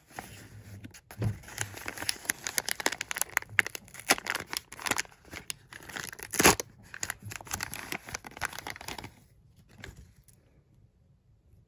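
Brown kraft paper bag crinkling and tearing as it is handled and opened, a dense run of crackles with the loudest rip about six seconds in, dying away about nine seconds in.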